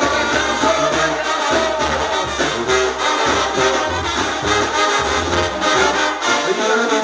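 Brass band music, trumpets and trombones over a bass line that moves in separate notes about twice a second.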